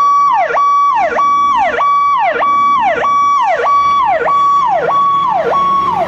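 Fire engine's electronic siren: a tone held high, then swooping sharply down, repeating evenly a little under twice a second.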